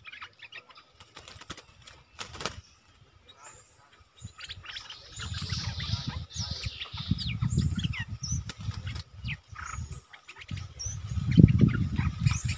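Bulbuls chirping and calling in short, quick, downward-sweeping notes. From about halfway in, a low rumble comes and goes under the calls, loudest near the end.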